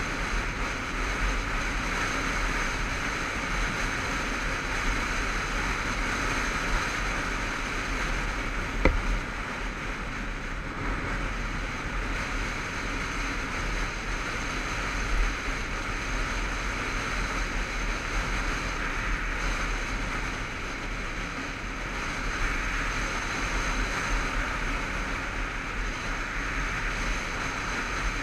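Wind rush over the camera and the motorcycle's engine and tyres, steady while cruising at road speed, with a brief knock about nine seconds in.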